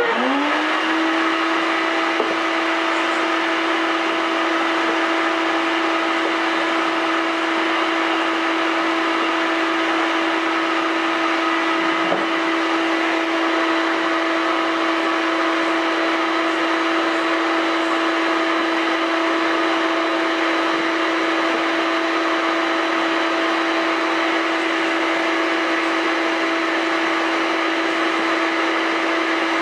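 Electric motor of a bucket-style coffee bean cooler switching on, spinning up within about a second, then running steadily with a constant whine while freshly roasted beans cool.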